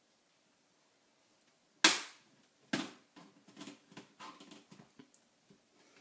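Plastic retaining clips of an Acer ES1-511 laptop's keyboard plate snapping loose as a screwdriver blade pries the case apart: two sharp snaps about a second apart, the first the loudest, then lighter clicks and rustling of the plastic case.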